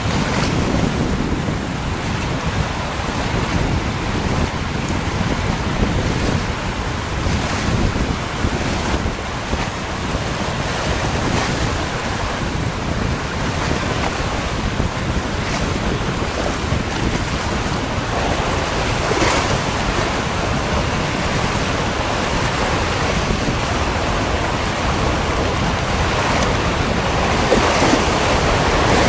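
Steady rush of the flood-swollen River Lee, mixed with wind buffeting the microphone in a few brief gusts.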